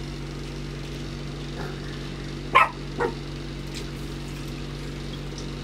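Two short, sharp calls about half a second apart, a little past the middle, over a steady low hum.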